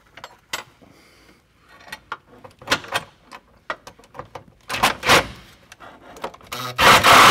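Cordless drill with a 3/8 socket driving a self-tapping screw through a steel bracket into a van's sheet-metal body, the screw drilling its own hole. Scattered metal clicks and rattles, then the drill runs loudly for about a second near the end.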